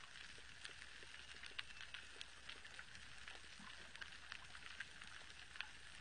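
Underwater coral-reef sound from a hydrophone: a faint, continuous crackle of many irregular small clicks over a steady hiss, the snapping-shrimp crackle of a reef.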